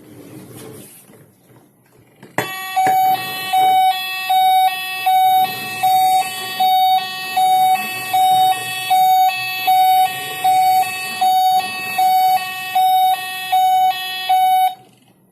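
Toy ambulance's electronic two-tone siren, alternating evenly between a low and a high note about one and a half times a second. It starts abruptly a couple of seconds in and cuts off shortly before the end.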